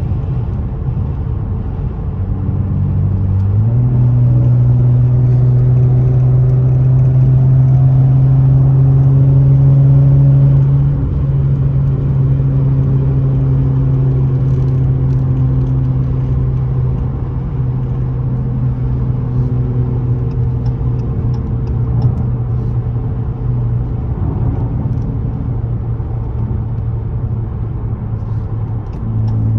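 Dodge Challenger SXT's V6 exhaust through aftermarket BigBoz 5 mufflers while driving: the engine note steps up about three to four seconds in as the car accelerates, holds a steady drone, then eases off about a third of the way through to a cruising note, picking up again near the end.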